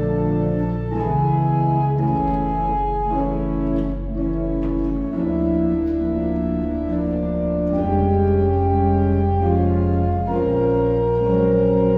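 Organ music: slow sustained chords over held low bass notes, the harmony changing every second or two.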